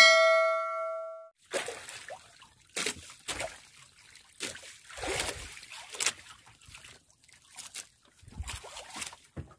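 A bell-like notification chime rings at the start and fades out over about a second. Irregular splashes and sloshes of water against a small wooden outrigger boat follow.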